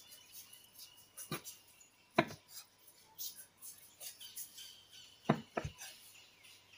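Kitchen knife slicing through a kimbap roll on a wooden cutting board, the blade knocking on the board as each cut goes through. There are four knocks, two of them close together about five seconds in.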